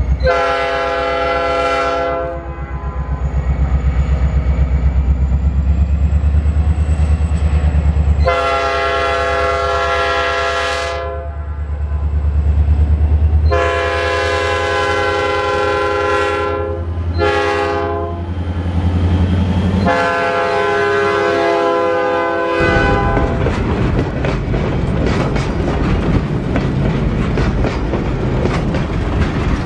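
Heart of Georgia Railroad EMD diesel locomotive sounding its multi-note horn: one long blast, then the long-long-short-long grade-crossing signal, over the deep rumble of its engine working under load as it approaches and passes. After the locomotive goes by, freight cars roll past with a steady rattle and clickety-clack of wheels on the rails.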